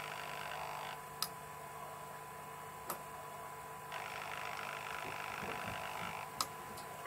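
Small hobby servo in a model railway semaphore signal whirring for about a second at the start as the arm finishes rising, then again for about two seconds as the arm swings back down. Sharp single clicks follow, one after each movement and two more besides.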